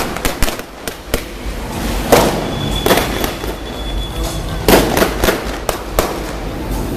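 Stunt-show pyrotechnics going off: an irregular string of about a dozen sharp bangs and cracks, several packed into the first second, the rest spread out at intervals.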